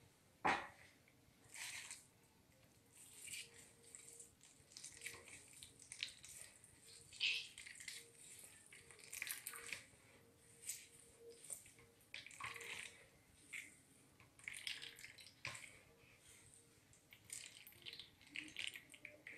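Grated cassava being wrung by hand in a cloth over a basin, its liquid dripping and trickling into the water in irregular spurts as the juice is pressed out. A sharp knock sounds about half a second in.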